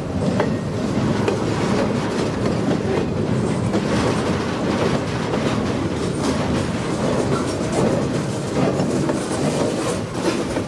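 A freight train's empty flatcars rolling past, steel wheels clacking on the rails over a steady rumble.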